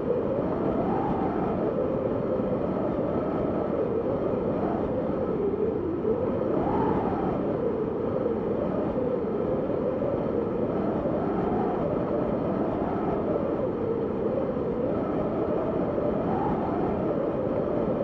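Howling wind: a steady rush of noise with a hollow, moaning pitch that rises and falls back every few seconds.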